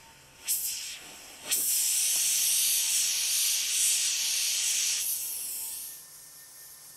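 A loud, steady hiss of steam, typical of a hot plaster-invested casting flask being plunged into water to quench it. It starts about a second and a half in after two short spurts and dies away about five seconds in.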